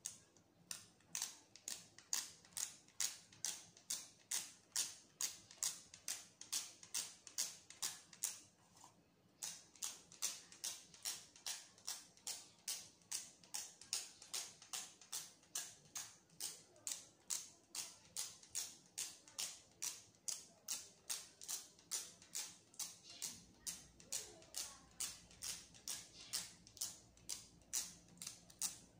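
A cloth wiped briskly back and forth over a smartphone's glass screen, a short swish with each stroke, about three a second, breaking off for a second about nine seconds in.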